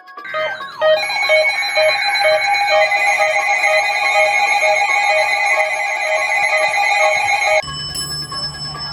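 Several electronic alarm tones and beeps layered over one another, with a beat pulsing about twice a second. They cut off abruptly about seven and a half seconds in, leaving a low hum.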